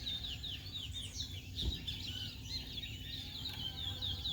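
Caged twa-twa (large-billed seed finch) singing: a fast, continuous run of short, high, downward-slurred whistled notes.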